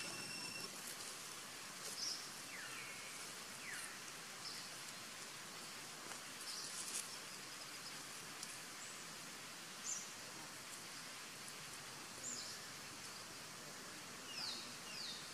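Outdoor ambience: a steady hiss with short, high, falling bird chirps every couple of seconds, two in quick succession near the start and again near the end.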